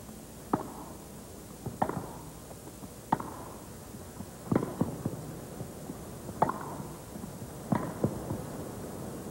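Tennis ball struck back and forth with rackets in a rally on a grass court: six sharp pocks about one every second and a third, a couple followed closely by a fainter knock.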